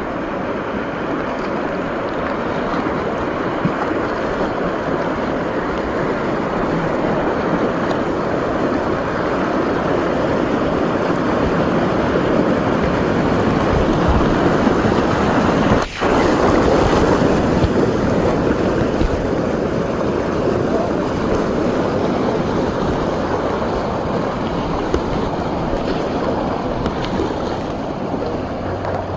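River whitewater rushing around a kayak running a rapid, with wind buffeting the microphone. The rush grows louder toward the middle, cuts out for an instant about halfway, then eases off.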